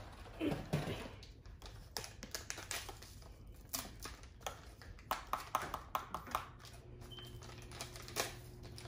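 Plastic snack packet being handled and torn open by hand: irregular small crackles and clicks, busiest from about five to six and a half seconds in.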